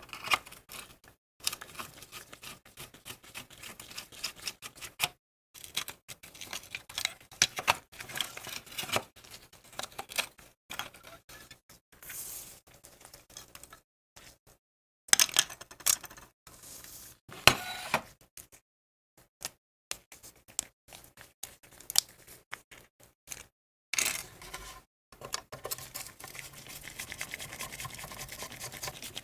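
Quick clicks, taps and scrapes of tools and small parts being handled, in short snippets cut off by sudden silences. Near the end a steadier rasping hiss runs for several seconds.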